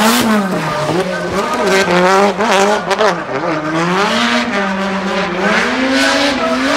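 Drift car engine held at high revs, its pitch rising and falling with the throttle through a slide, over the squeal and hiss of spinning tyres.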